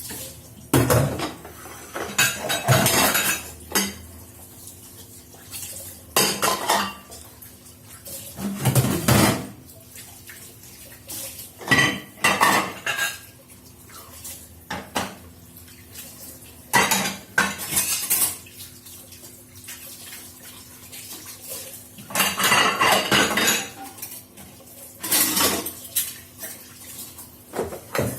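Dishes, pots and cutlery clattering as they are handled and stacked in a kitchen, in irregular bursts with short pauses between.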